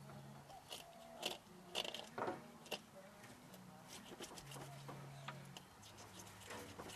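Fillet knife cutting through a carp's thick scales and flesh behind the head, a handful of sharp crunching scrapes between about one and three seconds in.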